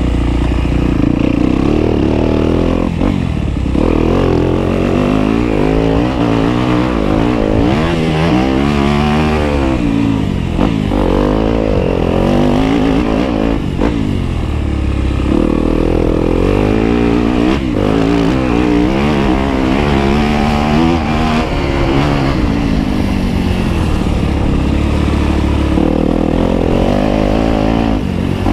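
Off-road vehicle engine running loud on a trail, its pitch climbing and falling again and again as the throttle is opened and eased.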